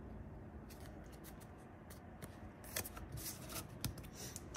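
Yu-Gi-Oh trading cards being handled: soft rustles and light clicks of card stock sliding and tapping, sparse at first and more frequent in the second half.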